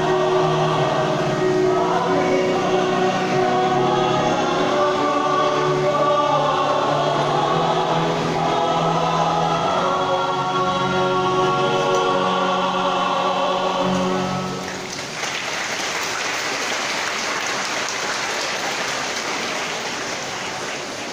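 Choir singing a hymn in long held notes, ending about two-thirds of the way through. Applause from the congregation follows.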